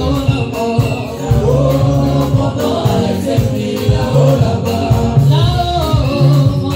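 Live gospel praise-and-worship song: several voices singing together over a band of congas, bass guitar and drum kit, with a steady beat and a bass line that repeats.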